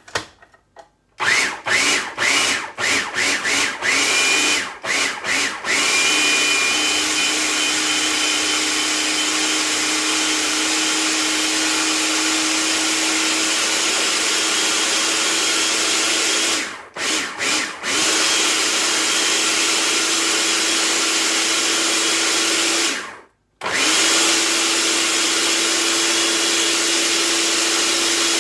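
Small electric food processor pulsed in short bursts for a few seconds, then run continuously, stopping briefly twice. It is working a thick chickpea falafel mixture with no water added, so it labours and keeps churning the same paste.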